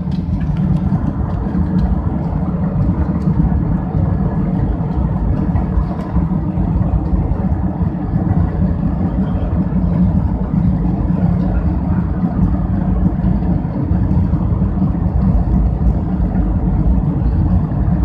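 Airbus A320's jet engines at takeoff thrust together with wheel and runway rumble during the takeoff roll, heard inside the passenger cabin: a loud, steady, deep rumble.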